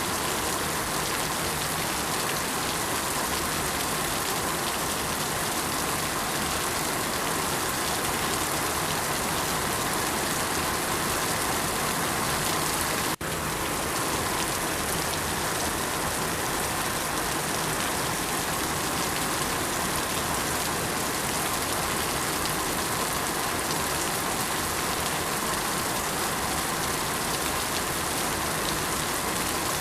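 Steady rain falling, an even hiss of many drops on surfaces, with a split-second dropout about thirteen seconds in.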